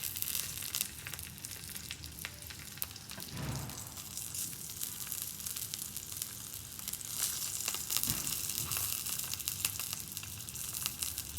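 Sausages frying in olive oil in a frying pan: a steady sizzle with many small crackles and pops.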